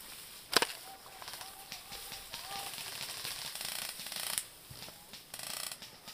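A sharp crack about half a second in, then rapid full-auto airsoft gunfire: a longer burst from about two and a half to four and a half seconds in and a short burst past five seconds.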